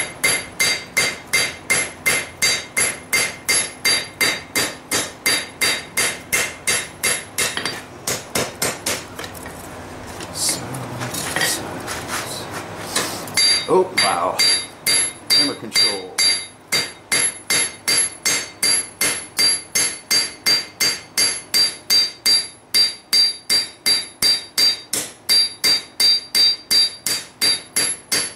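Blacksmith's hammer striking hot lawnmower-blade steel on an anvil, about two and a half ringing blows a second, as a kukri blade is forged. The hammering stops for about five seconds midway, then starts again at the same steady pace.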